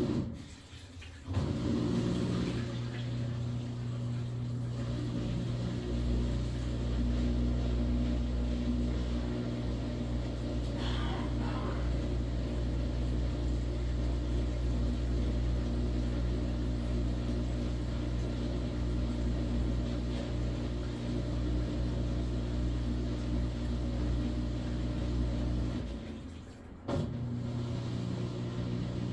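A Maytag washing machine running: a steady motor hum with a deep low rumble. It drops out briefly about a second in and again near the end, then starts up again.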